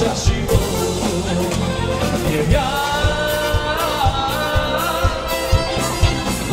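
Dance band music: a singer over a steady drum beat of about two beats a second.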